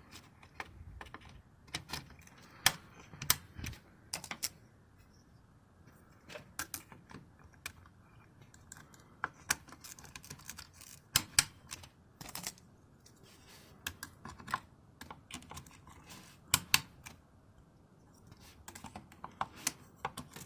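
Scattered, irregular sharp plastic clicks and taps as DDR4 RAM sticks are handled and pressed into the motherboard's memory slots.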